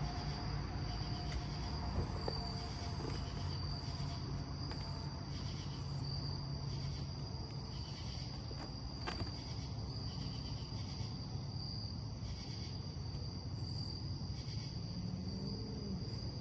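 Crickets chirping in a steady high pulsing trill, over a low steady rumble, with a single faint click about nine seconds in.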